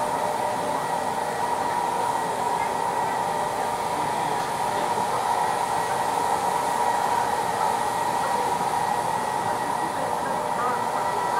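Asphalt-heating road-repair machine running steadily: an even blowing rush with a steady whine.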